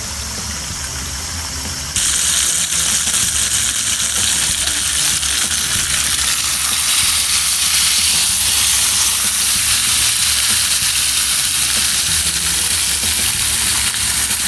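A thick steak sizzling in a hot skillet over a camping gas stove, a loud steady hiss that starts abruptly about two seconds in. Before that there is a quieter steady rush.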